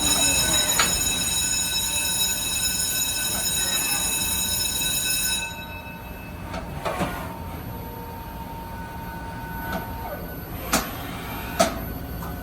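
1994 Haas VF-4 vertical machining center running with a high-pitched whine made of several steady tones, which cuts off about five seconds in. A fainter single tone carries on for a few seconds more, and two sharp clicks come near the end.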